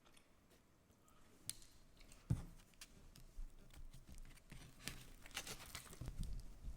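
Faint sounds of someone eating and handling a burger: scattered soft clicks, a single knock about two seconds in, and a denser run of crisp clicks near the end.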